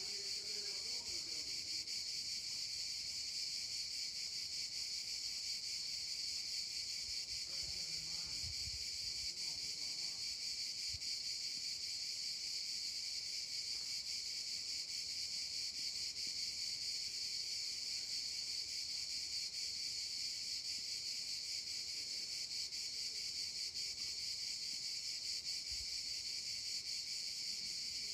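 Cicadas keeping up a steady, unbroken high-pitched chorus.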